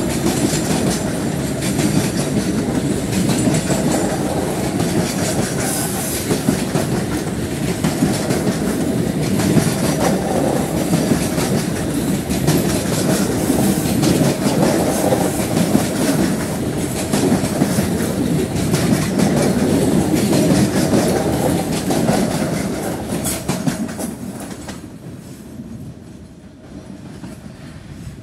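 Freight train of covered hopper wagons loaded with lime rolling past, wheels clicking and clattering over the rail joints under a steady rumble. The sound fades away over the last few seconds as the end of the train draws off.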